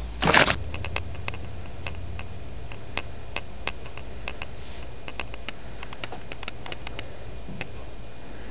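A brief loud rustle-like burst near the start, then light irregular clicks and ticks, about one or two a second, over a low steady hum.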